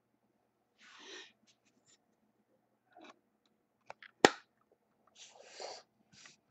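Hands handling a hard plastic card holder: a few faint taps and soft rustles, with one sharp plastic click a little past four seconds in.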